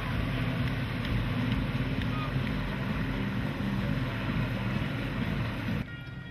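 Engines of boats passing close by, running as a steady low drone with a rushing noise of wind and water over it. The sound drops off abruptly near the end.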